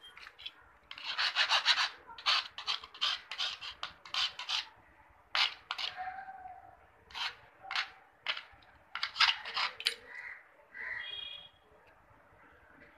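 Small metal piece scraped by hand against metal during key cutting: about a dozen short, irregular rasping strokes that stop about ten seconds in.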